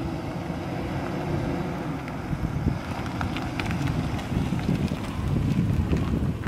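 2001 Chevrolet Silverado pickup driving past at low speed, its engine running and tyres rolling on asphalt, with light crackling from about halfway through as it passes close. Wind buffets the microphone throughout.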